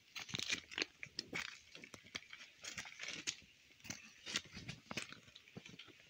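Footsteps crunching and scraping on a gravelly dirt road washed out by rain, in a quick irregular run.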